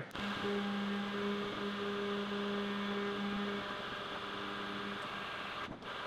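Heat gun running, its fan blowing with a steady hum while it heats a solder-and-seal connector to melt the solder band and shrink the tubing. It stops suddenly near the end.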